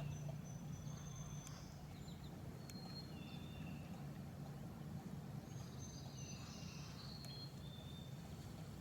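Faint outdoor ambience: birds giving scattered short chirps and whistles over a low steady hum.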